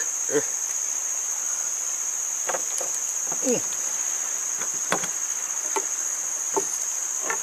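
A steady, high-pitched drone of insects from the surrounding forest, with a few brief knocks and clicks scattered through it.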